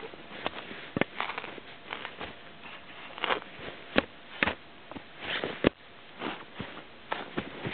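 Spade cutting into grassy turf to dig a hole, with irregular crunches, scrapes and knocks of the blade in soil and roots and the rustle of dry grass.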